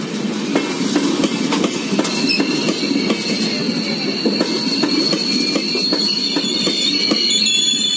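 LHB passenger coaches rolling past close by, the wheels clacking in a steady rhythm over a continuous rumble. About two seconds in, a high steady squeal from the braking wheels sets in and holds as the train slows to halt.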